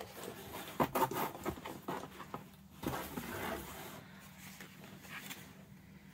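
Rustling and crinkling of packaging as toy boxes are handled and taken out of a box, in two bursts about a second in and around three seconds, quieter after that.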